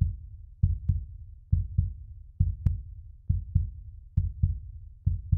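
Heartbeat sound effect: pairs of deep thumps, lub-dub, repeating steadily at about one pair every 0.9 seconds.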